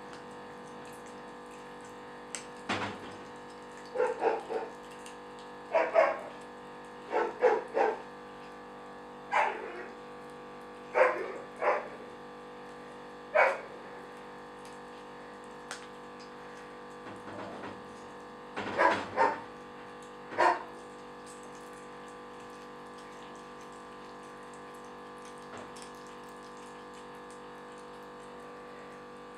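Abyssinian kittens making about a dozen short, loud calls while gnawing raw chicken heads. The calls come singly and in quick pairs during the first two-thirds, over a steady background hum.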